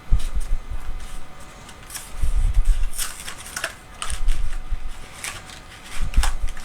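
Handling noise: irregular clicks, rustles and low bumps of small packets of photo paper being handled and pulled apart.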